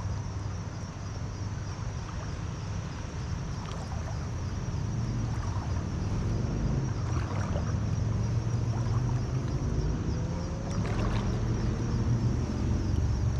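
Boat motor running steadily with a low hum, heard over the moving water.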